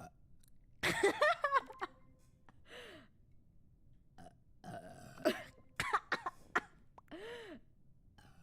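A person burping repeatedly: a loud burp about a second in, then a string of shorter burps spaced through the following seconds.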